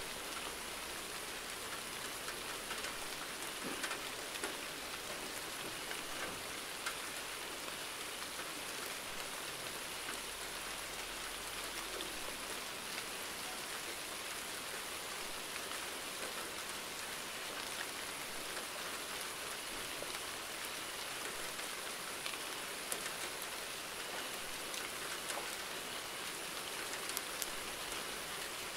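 Steady rainfall: an even hiss of rain hitting a surface, with individual drops pattering through it.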